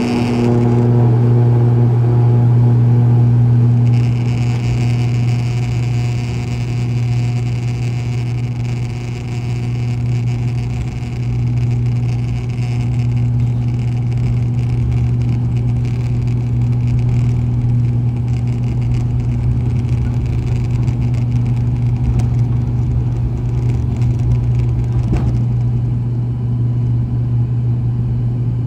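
Cabin sound of an ATR 72-500's Pratt & Whitney Canada PW127 turboprops at takeoff power during the takeoff run: a loud, steady low propeller drone from the six-bladed props. Over it a high hiss thins out late on, and there is a single knock about 25 seconds in.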